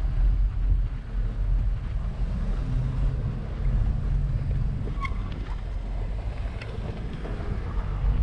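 Wind rumbling on the microphone of a bike-mounted GoPro while the bicycle rides over snow-covered pavement, a steady low buffeting. A short faint chirp about five seconds in.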